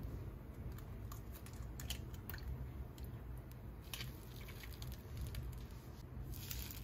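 Faint crackling and scattered small ticks of a raw egg and flour tortilla cooking in a hot nonstick frying pan, with a brief louder hiss near the end over a low steady hum.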